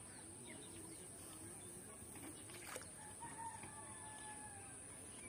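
A rooster crowing faintly, one drawn-out call about three seconds in, over a steady high-pitched hiss.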